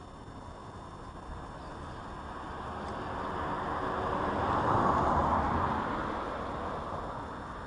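A vehicle driving past: road noise rising to a peak about five seconds in, then fading away.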